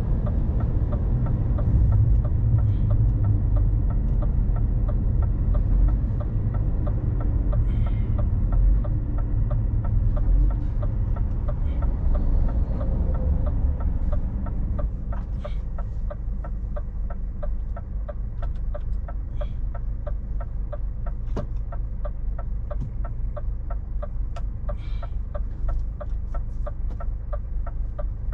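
Inside the cab of a Scania 500S truck: low engine and road rumble that eases off about halfway through, under a steady, rapid ticking of the turn-signal indicator.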